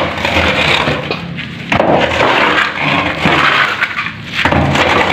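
A long wooden plank raking broken concrete and rubble across the floor of an opened tomb niche, scraping and crunching in repeated strokes.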